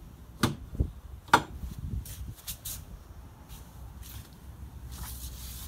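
A few sharp clicks and knocks of boat hardware being handled, the loudest about a second and a half in, over a low steady rumble.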